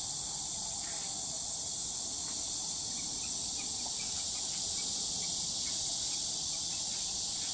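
A steady, high-pitched chorus of summer insects.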